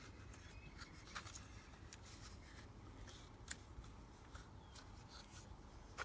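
Faint handling noise from plastic doorbell housings turned and rubbed in the hands, with a few light clicks, the sharpest about three and a half seconds in, over low room hum.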